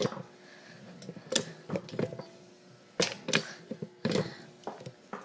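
A 12-ton hydraulic pipe bender being worked, giving a string of irregular sharp clicks and knocks from its pump and ram as it bends steel pipe.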